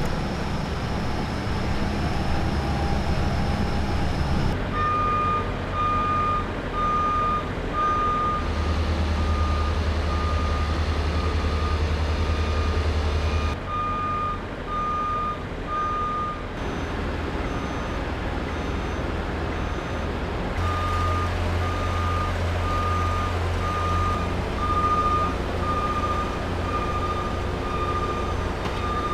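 A work vehicle's reversing alarm beeping steadily, a little more than once a second, over the rumble of its running engine. The beeping stops for a few seconds twice.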